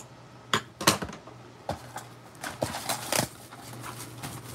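Hands handling and opening a sealed cardboard trading-card box (a Panini Prizm Mega Box), giving a scattering of sharp taps and crackles.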